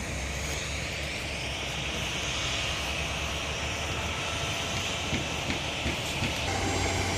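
Steady engine rumble with a hissing whine that rises in pitch over the first couple of seconds and then holds.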